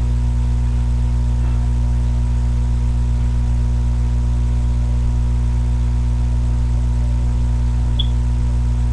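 Steady electrical hum with a stack of buzzing overtones, unchanging throughout: mains hum picked up by a webcam microphone. A faint short high chirp near the end.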